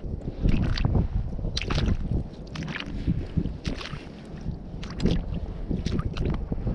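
Footsteps squelching and sloshing through wet mud and shallow water, one or two irregular steps a second, with wind rumbling on the microphone.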